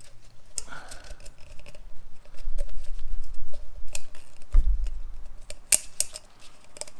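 Rubber-gloved hands handling an oil filter housing while working a new O-ring into its groove: scattered clicks and rubbing, the sharpest near the end, over a low rumble that is loudest in the middle.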